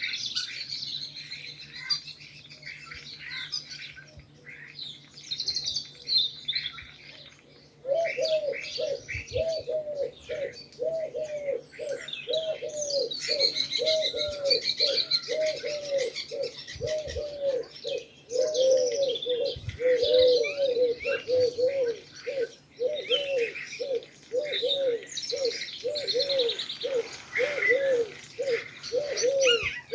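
Small birds chirping and twittering, joined about eight seconds in by pigeons cooing over and over in a steady, even rhythm.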